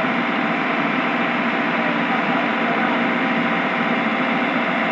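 Heavy diesel machinery running steadily: an engine drone under a loud, even hiss that does not change.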